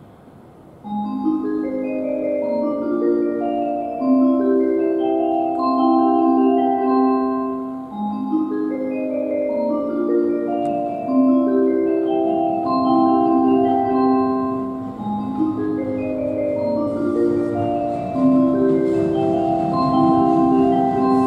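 Station platform approach melody over the PA: a repeating mallet-percussion tune of short chiming notes, signalling that a train is approaching the platform. A faint hiss from the incoming train joins near the end.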